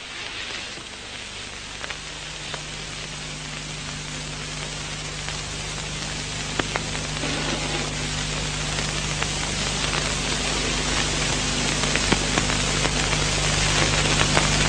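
Steady hiss with faint scattered crackles from an old film soundtrack, growing gradually louder, over a low steady hum.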